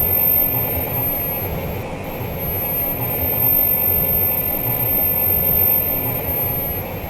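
A steady low rumbling noise with a thin, high steady whine above it, from a monster-film sound-effects track.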